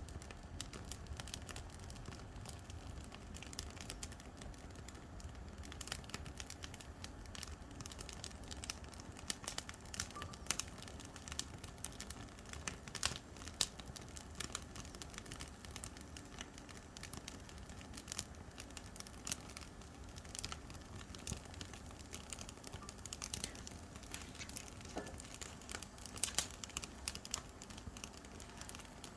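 Oak firewood burning in a campfire, crackling with irregular sharp pops and snaps.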